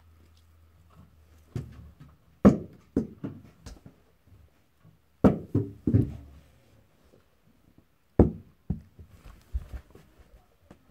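Crunchy putty with sprinkles mixed in being squeezed and pressed by hand, making irregular clusters of short pops and clicks with pauses between.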